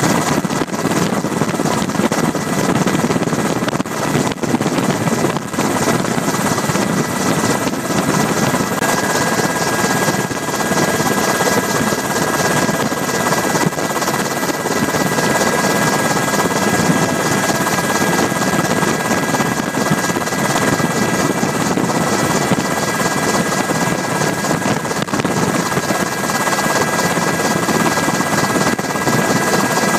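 UH-60 Black Hawk helicopter in flight, heard from inside the cabin: a loud, steady rotor and engine noise with a high steady whine running through it.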